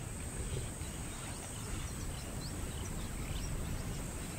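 Savanna bush ambience: a steady high-pitched insect drone with a few faint, short bird chirps over a low background rumble.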